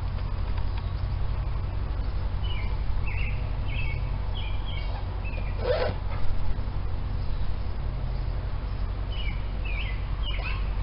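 Steady low hum with small birds chirping in short bursts, and one brief clank about six seconds in.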